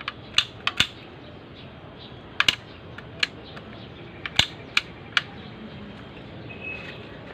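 Metal hand tools and engine parts clinking and clicking against each other in irregular, sharp strikes, about a dozen in all, some with a short metallic ring.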